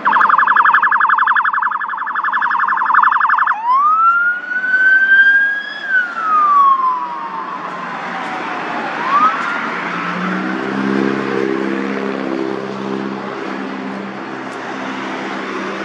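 Emergency vehicle siren passing on a road: a fast warbling yelp for about three and a half seconds, then a slow wail that rises and falls and starts to rise again. From about ten seconds in, the siren fades and a heavy vehicle engine drones under traffic noise.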